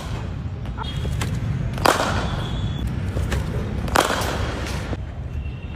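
Cricket bat striking a ball twice, about two seconds apart: two sharp cracks, each with a short ring, over a steady low rumble.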